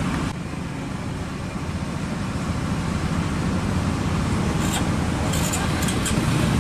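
Steady low outdoor background rumble, with a few short sharp clicks near the end.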